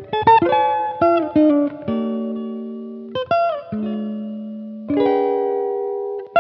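Background music of plucked string chords, each starting sharply and ringing out to fade before the next, a new chord about every second.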